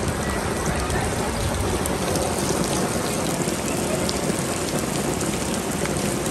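Heavy rain falling steadily onto flooded street water: a dense, even hiss with scattered sharp drop ticks.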